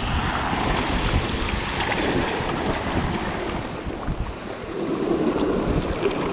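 Sea surf washing and foaming around shoreline rocks, surging and easing, with wind buffeting the microphone.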